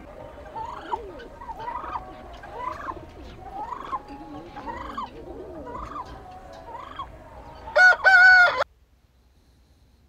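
Domestic fowl calling: a string of short calls, a little more than one a second, then a louder, clearer call about eight seconds in that cuts off suddenly.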